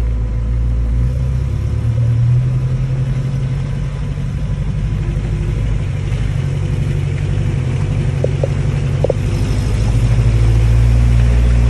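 Off-road vehicle driving on a gravel track: its engine makes a steady low rumble, with a few short squeaks partway through, and it gets louder about ten seconds in as the vehicle speeds up and the tyre and road noise grows.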